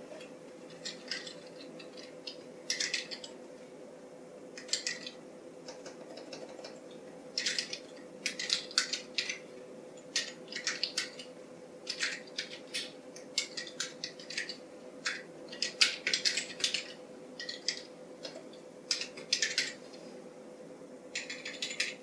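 Typing on a custom AEK64 mechanical keyboard with vintage white damped Alps switches in a stainless steel plate: quick runs of keystroke clacks with short pauses between words.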